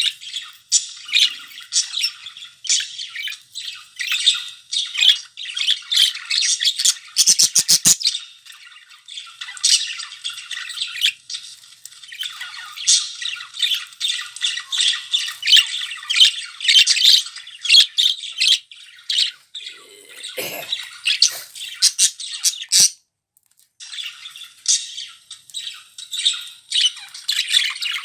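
Budgerigars chattering and squawking in a dense, continuous stream of quick high chirps and warbles. A short rattle of sharp clicks comes about a quarter of the way in, and the sound cuts out briefly about three-quarters through.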